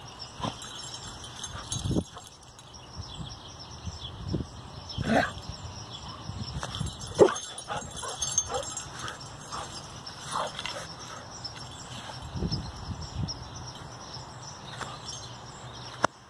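Carolina dog making short, scattered vocal sounds during rough play on grass, with a sharp knock about seven seconds in.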